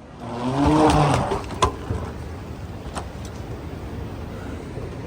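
A vehicle passing close by, loudest about a second in, followed by a few sharp clicks over a steady rumble.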